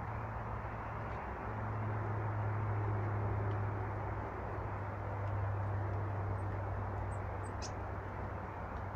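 Steady low hum and rumble of background traffic noise, with a few faint high chirps of small birds in the second half.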